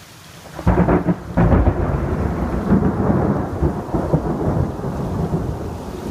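Thunder breaks suddenly just under a second in, surges again a moment later, and rumbles on with a crackling roll. Steady rain hiss runs beneath it.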